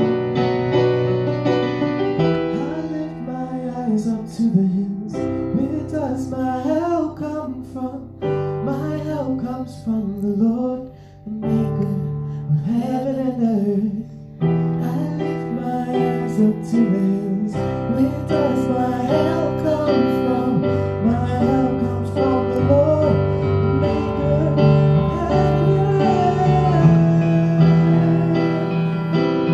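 A Kawai digital keyboard playing sustained chords of a slow worship song, with a voice singing a drawn-out, wavering melody over it.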